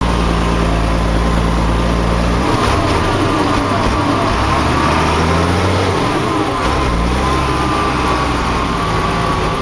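Deutz tractor's diesel engine running steadily while driving, with a whine over the engine note. The engine note steps in pitch a couple of times.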